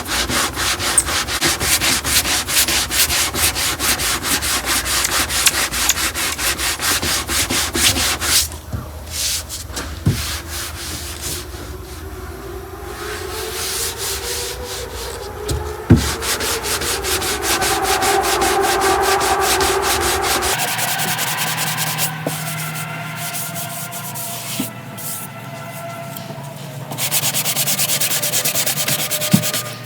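Half-cured body filler on a car door being cut down by hand at its tacky stage: rapid, repeated scraping strokes, with the sound changing abruptly a few times.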